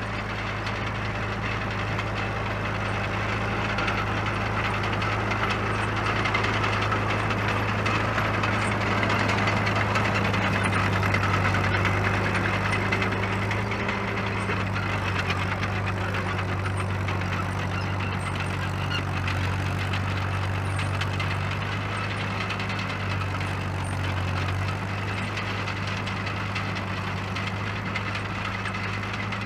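A 1949 Caterpillar D2 crawler's four-cylinder diesel engine running steadily as the crawler travels, a little louder around ten seconds in. The engine runs as it should.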